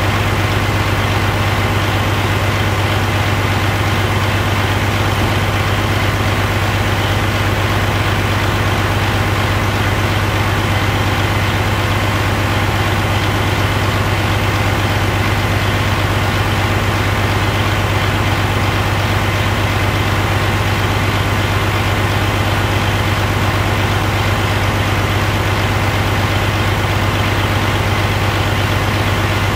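A 2013 Detroit DD13 inline-six diesel engine running steadily at idle, holding an even speed with a strong low hum.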